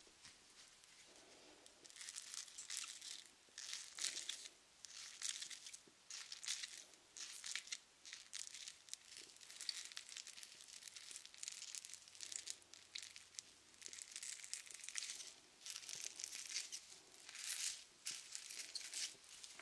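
Close-up rubbing and crinkling strokes of a soft object wiped over the microphone and lens, about one stroke a second after a quieter first two seconds.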